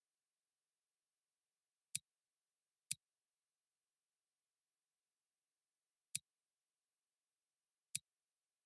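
Four brief sharp clicks in otherwise dead silence: two about a second apart near the start, then one after a pause of about three seconds and a last one near the end.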